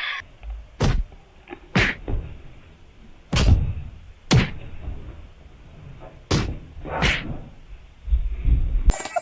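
A series of thumps and knocks, about six sharp ones spaced roughly a second apart, then duller low thumps near the end.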